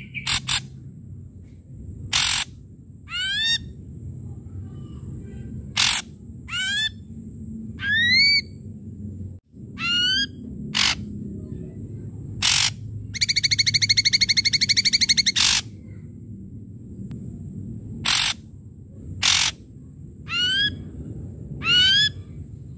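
Ashy drongo singing in short separate phrases: sharp harsh notes mixed with rising whistled upslurs. Just past halfway it gives a rapid rattling trill lasting about two seconds.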